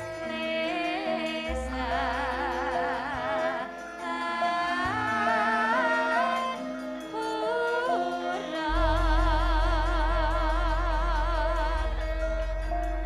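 Two female Javanese gamelan singers (sindhen) singing with a wavering vibrato over a gamelan ensemble's steady metallophone notes. A deep bass note swells in about nine seconds in and sustains.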